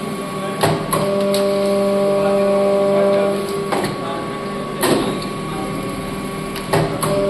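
Paper plate making machine pressing plates: a steady motor hum that starts and stops with the press cycle, broken by a few sharp clacks of the die.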